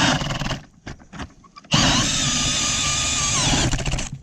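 Power ice auger drilling through ice in bursts, its motor whining steadily and then winding down in pitch as it is let off. It stops about half a second in, starts again after about a second, and stops once more near the end.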